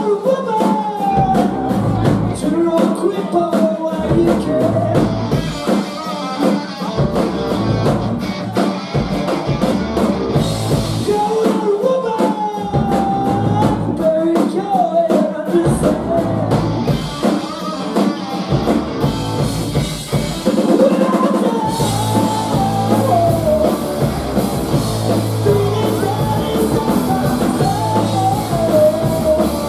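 A rock band playing live and loud: electric guitar, electric bass and a drum kit, with steady drum strokes under a bending melodic line.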